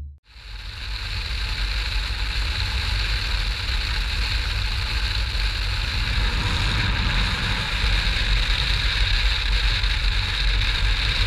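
Motorcycle riding at road speed, heard from a helmet-mounted camera: steady wind rush over the microphone with the engine's low rumble underneath.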